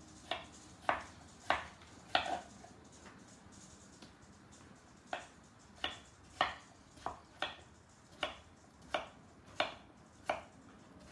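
Kitchen knife chopping English cucumber on a wooden cutting board: separate, unhurried strokes, four at first, a pause of about three seconds, then about ten more in a steady run of one to two a second.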